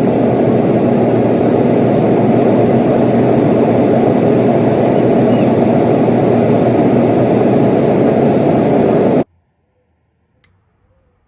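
Dyna-Glo forced-air kerosene heater running, a loud steady rushing of burner and fan with a low hum beneath it, which cuts off abruptly about nine seconds in.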